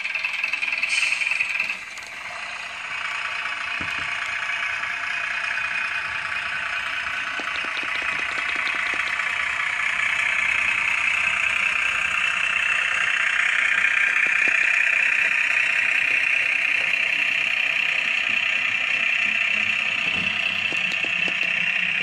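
Diesel railbus engine sound from an SWD DCC sound decoder, played through the small onboard speaker of a Heljan AC railbus model. The engine note dips briefly about two seconds in, then builds gradually and holds steady.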